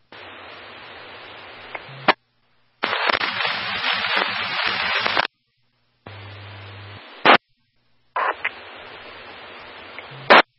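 Police scanner radio static: the squelch keeps opening on unmodulated carriers, giving stretches of hiss that cut off to dead silence, each ending with a short squelch-tail burst. The second stretch, from about three to five seconds in, is a much louder rush of static.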